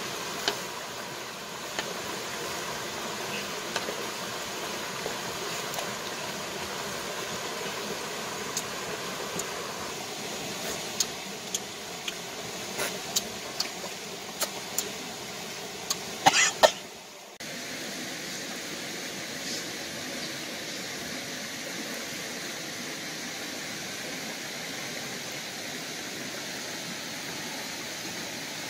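Steady rush of a shallow rocky river flowing. Scattered sharp clicks and taps in the middle, the loudest a quick cluster a little past halfway, as food is eaten off a metal knife blade.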